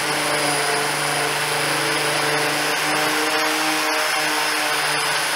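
Electric angle grinder running steadily with an abrasive disc against the painted steel bonnet, stripping the paint back to bare metal. A constant motor whine sits over a grinding hiss.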